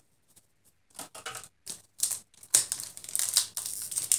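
Light clicks of playing cards being handled, then a foil booster-pack wrapper crinkling in the hands from about two and a half seconds in.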